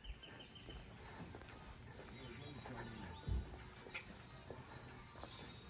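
Faint outdoor ambience: a steady high insect drone with scattered faint bird chirps, and a soft low thump about three seconds in.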